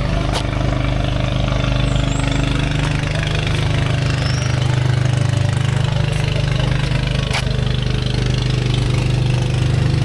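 A small engine running steadily at a constant idle, its low, even drone unchanged throughout.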